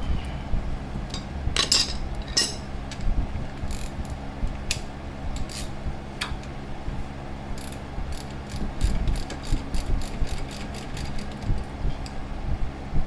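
Socket ratchet wrench clicking in short runs of quick clicks, the longest run a little past the middle, with a few louder metal clinks early on.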